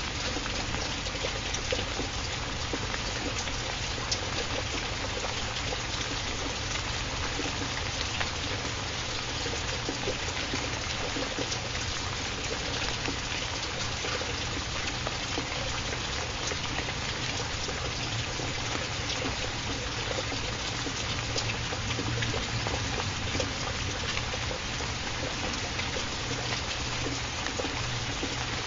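Steady rain recording: an even hiss of falling rain with scattered individual drop ticks and a steady low rumble underneath.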